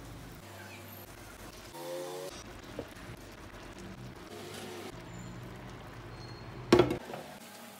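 A steady low hum, then about three quarters of the way in a single sharp clink with a short ring: the clay lid of a tajine being set on the pot.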